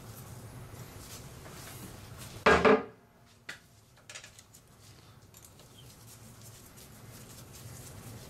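Hex key working the screws of a lathe's headstock gearbox cover: faint metal clicks and scrapes, with one loud clatter about two and a half seconds in.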